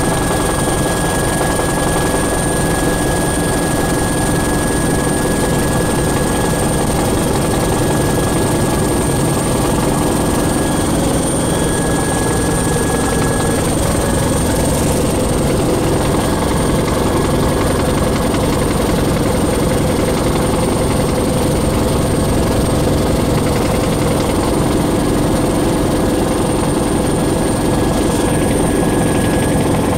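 Bell 412 helicopter in forward flight, heard inside its cockpit: steady rotor and twin-turbine engine noise with a constant high whine.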